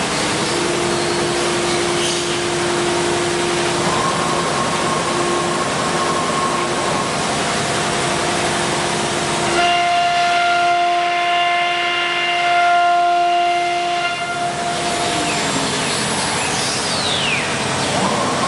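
CNC router running. The spindle gives a steady high whine over a continuous noisy hiss. About halfway through the hiss drops back for a few seconds and several steady whining tones stand out. Near the end the spindle's pitch sweeps as its speed changes.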